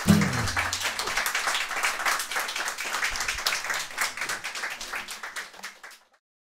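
Small audience applauding, with many quick hand claps. It tapers off and stops about six seconds in.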